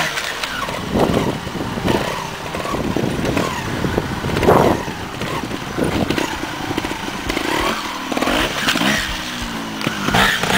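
TRS 250cc two-stroke trials motorcycle engine, blipped and revved up and dropped back again and again as the bike hops up concrete blocks, with knocks of the tyres landing on the concrete.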